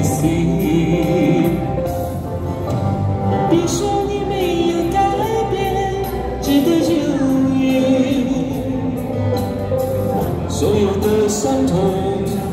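A woman singing a Chinese pop ballad into a handheld microphone over a karaoke backing track, both amplified through small portable speakers.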